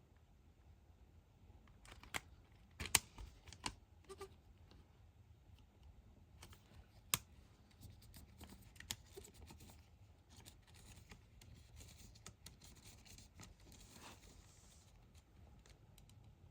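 Quiet handling of CD and DVD packaging: scattered sharp clicks of plastic cases and wrapping, the strongest about three and seven seconds in, and a soft rustle near the end.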